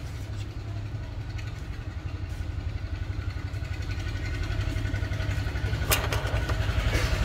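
An engine running with a fast, even low throb, growing steadily louder. A sharp click sounds about six seconds in.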